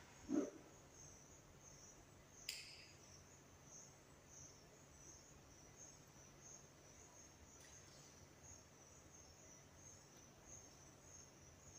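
Faint, steady high-pitched insect chirring, pulsing evenly. A low thump about half a second in and a sharp click about two and a half seconds in stand out over it, with a fainter click later.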